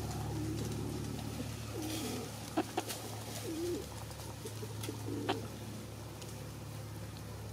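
Soft, low, wavering bird calls, a few short ones spread out, with three sharp clicks near the middle over a steady low hum.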